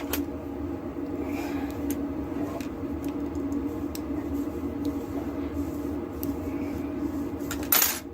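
Steady low hum with a few faint small clicks from deadbolt lock parts being handled. A brief loud noise comes near the end.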